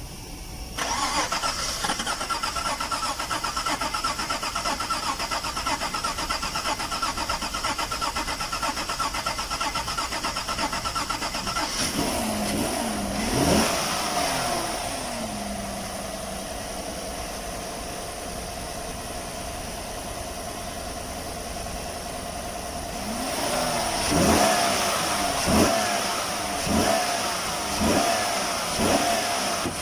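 2015 GMC Sierra's 6.2-litre V8 running with newly replaced fuel injectors. It is revved once about twelve seconds in, settles to a steady idle, then has its throttle blipped about five times in quick succession near the end.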